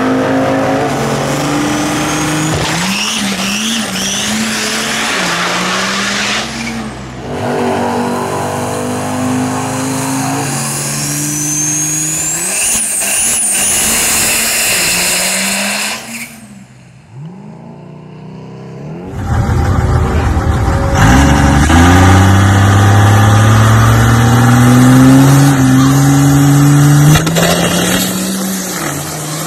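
Turbocharged 12-valve Cummins diesel in a Ford F100 drag truck running at full throttle down a drag strip, its pitch climbing through each run, with a high whistle rising over it twice from the compound turbos spooling. Several separate runs follow one another, with a brief quieter gap about two thirds of the way through.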